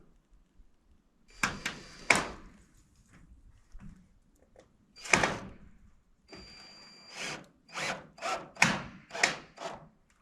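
A cordless drill driving screws into roofing panels: the motor whines, then runs in a string of short pulses, with a few sharp knocks near the start.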